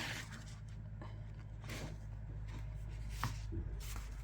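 Paper handling: soft rustles and swishes as album pages and inserts are moved, over a steady low hum.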